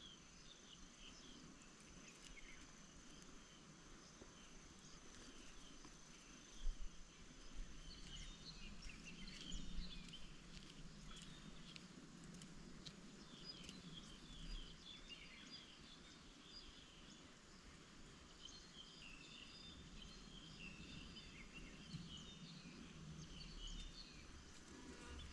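Near silence: faint outdoor ambience with scattered high bird chirps and a steady high insect drone, broken by a couple of soft knocks about seven and ten seconds in.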